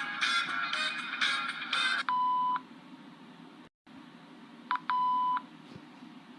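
Soundboard clips played from a phone app: the last notes of a short musical jingle, then a steady high bleep of about half a second, sounded twice a few seconds apart, like a censor beep.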